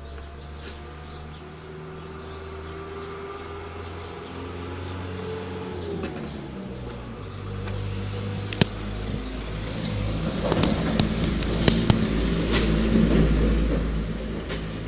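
Small birds chirping over a steady low hum, then a low rumble with a run of sharp knocks and clicks from the camera being handled and moved, loudest about ten to twelve seconds in.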